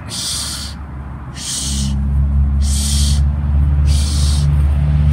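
Short, sharp breaths, about one every second and a quarter, from a person straining to hold a Bullworker spring exerciser in the push position. A steady low hum comes in about a second and a half in and stays loud.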